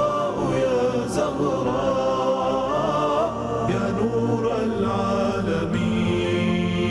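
Arabic devotional song (nasheed) with chant-like, choir-style voices over a steady melodic accompaniment.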